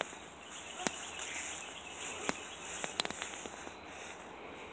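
Outdoor ambience with a steady high-pitched insect chorus, and a few sharp clicks about one, two and three seconds in.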